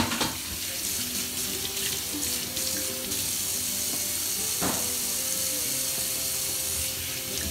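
Kitchen tap running steadily, stopping shortly before the end, over background music with long held notes.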